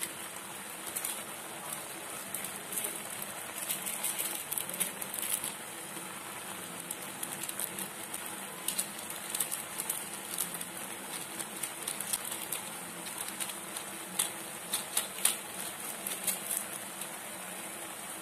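Instant noodles simmering in water in a wide pan: steady bubbling with many irregular small pops and crackles.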